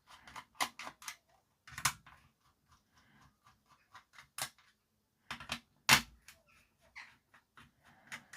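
Sharp plastic clicks and knocks from a toy bubble gun's casing being handled and fitted back together, with a few louder snaps among lighter ticking.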